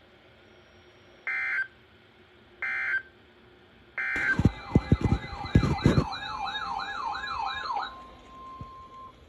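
Three short Emergency Alert System end-of-message data bursts, evenly spaced about a second and a half apart, closing the alert. A loud electronic siren-like tone then warbles rapidly up and down over several heavy thumps, and ends in a brief faint steady tone.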